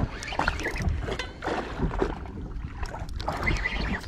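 Wind and sea noise aboard a small fishing boat: a low rumble with scattered knocks and clicks.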